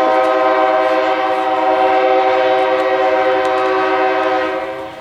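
A loud, sustained horn chord of several tones held at a steady pitch, fading out near the end.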